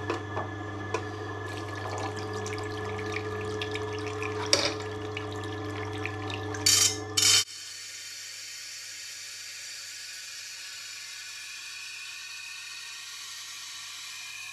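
Tormek T8 water-cooled sharpener running with a steady hum as its wheel turns through the water trough, with clicks and a few sharp knocks as the knife jig is set on the support bar and the blade is brought to the wheel. About seven seconds in, the sound drops suddenly to a quieter, even hiss over a faint hum while the blade is held on the wheel.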